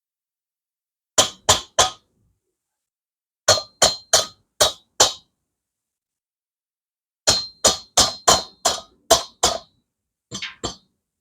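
Hammer blows on the Moto Guzzi Ambassador's cylinder as it is knocked loose from the engine: three quick strikes, a pause, five more, a pause, eight more, then two lighter taps, each with a brief metallic ring.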